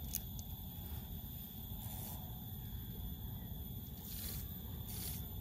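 Quiet riverbank ambience: a faint, steady low rumble with a thin hiss, and a couple of soft ticks near the start.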